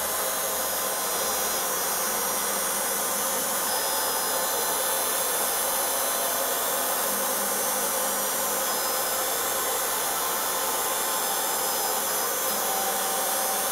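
Desktop CNC engraver's DC spindle motor running steadily, a constant whirring with no change in speed.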